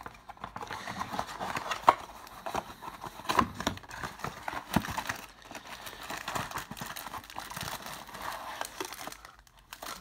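Hand handling of a cardboard trading-card mini box as it is opened and its foil packs are pulled out: rustling, scraping and crinkling with irregular sharp clicks, the loudest about two seconds in.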